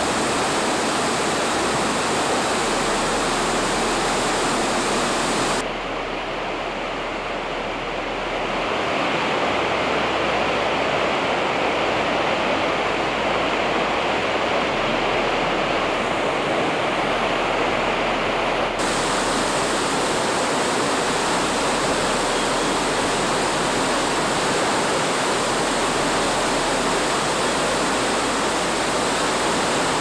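Steady rushing of flowing creek water, a continuous even wash of noise. From about six to about nineteen seconds in it sounds duller, with less hiss.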